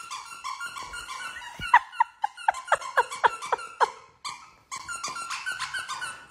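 Large dog whining in a run of short, high squeaks that each fall in pitch, about four a second, with scattered clicks around them.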